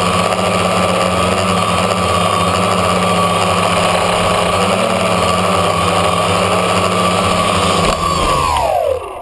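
Tricopter's electric motors and propellers whining steadily in flight, heard through its onboard camera. Near the end it touches down and the whine falls sharply in pitch as the motors spin down.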